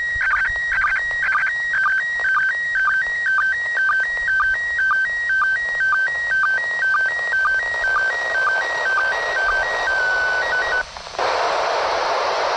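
Slow-scan TV image signal in PD120 mode from the International Space Station's amateur radio, heard through a Yaesu FT-60 handheld FM transceiver's speaker: a warbling pattern of tones repeating about twice a second, one step per pair of picture lines, with radio hiss growing beneath it. About eleven seconds in the tones stop and the radio gives out steady loud static: the image transmission has ended.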